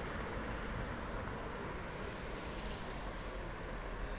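Steady outdoor city ambience: an even low rumble and hiss with no single distinct event.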